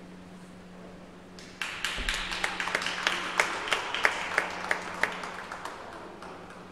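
A small group of people clapping, starting about a second and a half in, with a few loud single claps standing out and fading toward the end. A low steady hum sits underneath.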